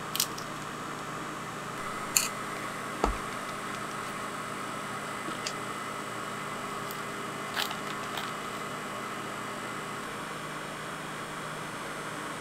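Steady background hum with a few sharp light clicks scattered through, about two seconds in and near eight seconds, and one dull thump about three seconds in.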